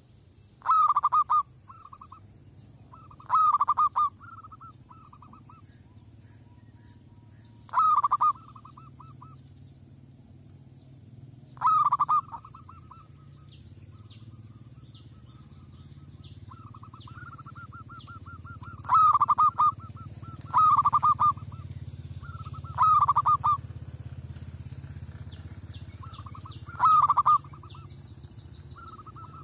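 Zebra dove (merbok) cooing: loud staccato phrases of rapid, rolling coo notes, each under a second, repeated every few seconds. Softer, longer trains of cooing come between the loud phrases.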